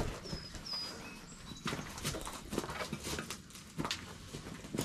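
Freshly sawn 2x6 lumber boards knocking and clattering as they are lifted off a stack and carried: a series of irregular sharp wooden knocks.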